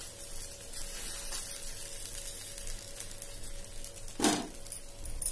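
Wheat-flour dosa batter sizzling faintly on a hot tawa, with one short knock about four seconds in.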